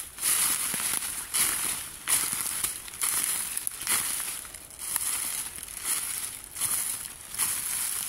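Footsteps crunching and rustling through a thick layer of dry fallen leaves on a forest slope, in an even walking rhythm of about one and a half steps a second.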